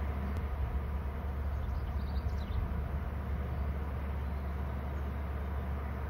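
Steady low rumble of outdoor background noise on the webcam's microphone, with a few faint, high, short bird chirps about two seconds in.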